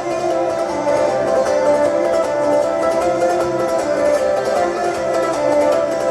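A Kazakh folk ensemble playing live: plucked string instruments with fast, even plucking over sustained notes and a steady low drone.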